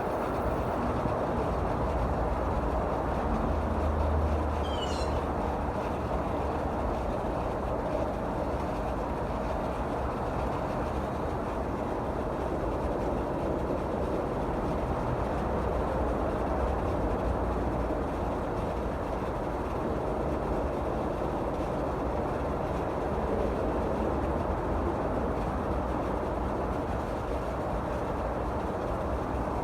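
Rheem 5-ton outdoor air-conditioner unit running with a steady, even whooshing hum from its condenser fan.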